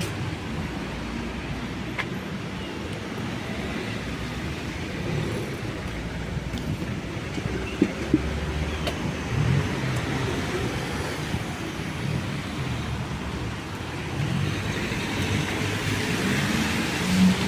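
Street traffic: cars running past on a city street, one passing closer with a swell of tyre noise near the end. Two sharp clicks come about halfway through.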